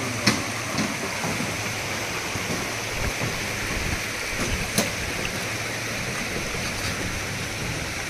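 Steady rush of flowing river water from the Dudhsagar falls and stream, with two sharp clicks, one just after the start and one a little past the middle.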